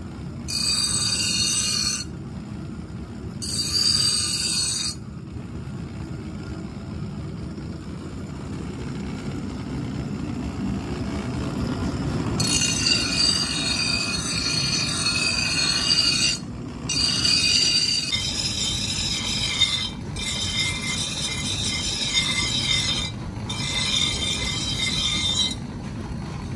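Bench grinder running with a steady low hum while a leaf-spring steel cleaver blade is pressed against its wheel, giving a high grinding screech on each pass. There are two short passes in the first few seconds, then longer passes from about halfway with brief breaks between them.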